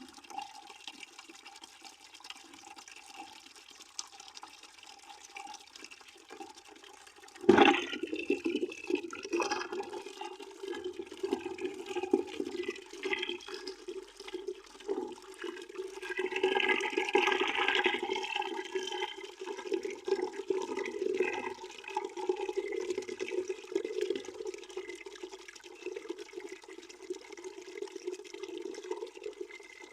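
Water running steadily into a bucket. A sharp knock comes about seven and a half seconds in, and after it the splashing is louder.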